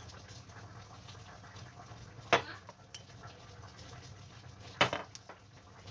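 A metal teaspoon clinks sharply twice, about two and a half seconds apart, while spices are measured out. A faint low hum runs underneath.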